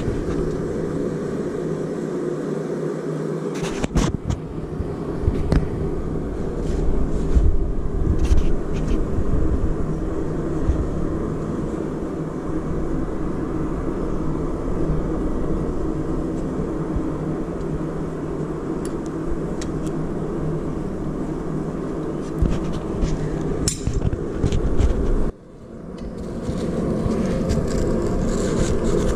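Steady roar of a blacksmith's forge running, with a few light knocks of metal tools. The sound cuts out abruptly near the end and comes back.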